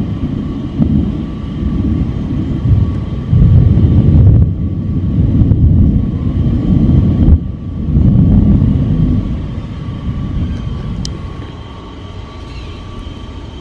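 Thunder rolling in a long, loud low rumble that swells several times and dies away over the last few seconds.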